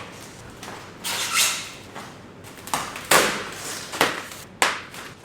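Protective packing foam being pulled off and handled, rustling and scraping in four or five short bursts.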